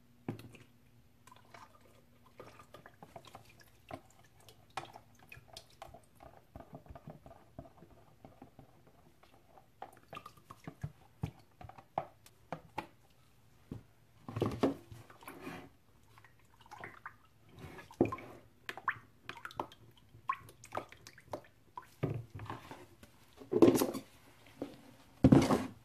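Melted soap-making oils and butters being poured and scraped out of a plastic tub into a plastic measuring pitcher with a silicone spatula: scattered drips, taps and clicks of plastic, with several louder knocks in the second half.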